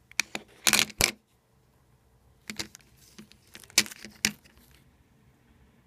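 Clear plastic coin capsule holding a 2017 Somalia Elephant 1 oz silver coin, clicking and rattling as it is handled. There are two clusters of sharp clicks, about a second in and again around three to four seconds in.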